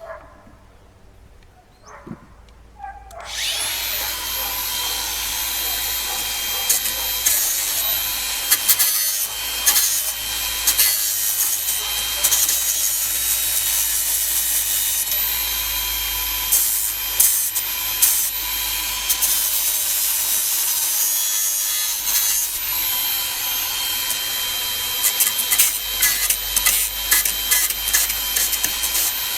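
A small power tool starts about three seconds in and runs steadily with a whine, grinding against metal with scraping bursts as it takes the sharp edges off a lawn mower part.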